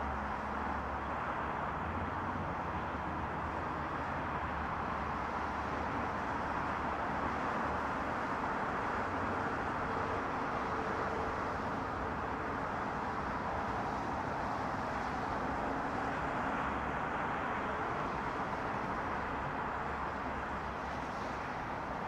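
Highway traffic: a steady, continuous rush of tyres and engines from cars on a multi-lane road, with a low rumble underneath.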